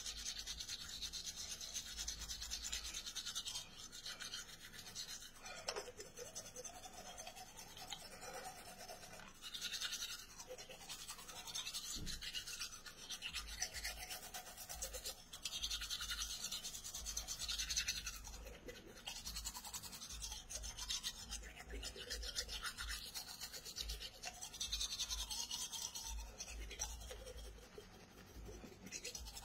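Manual toothbrush scrubbing teeth, the bristles rasping in stretches of back-and-forth strokes broken by short pauses.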